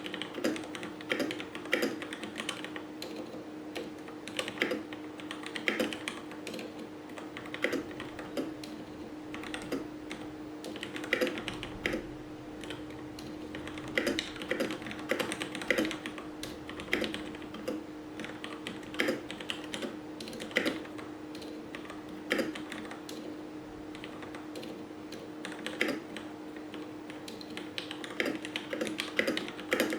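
Fast typing on a Ducky Zero 2087S mechanical keyboard with linear Cherry MX Red switches greased with Krytox 205g0: keystrokes come in quick, irregular runs, over a steady low hum.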